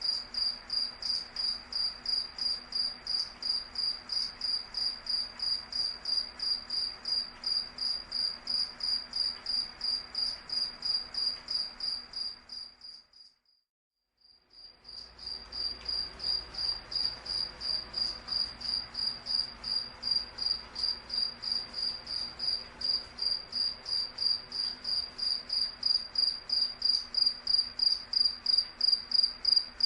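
Cricket chirping steadily on one high pitch, about two chirps a second. Roughly halfway through it fades out to a second or so of silence, then fades back in and grows a little louder.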